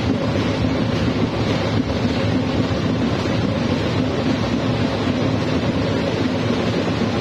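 Ati-atihan drum and percussion band playing loudly and without a break, heard as a dense, steady din.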